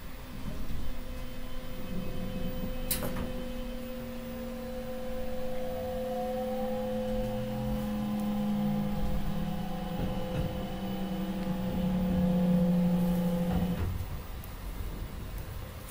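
Mitsubishi GTO VVVF inverter and traction motors of a Kintetsu 22000 series ACE electric train whining under power as the train accelerates. Steady electric tones with a rising glide partway through cut off suddenly about two seconds before the end, with a sharp click about three seconds in.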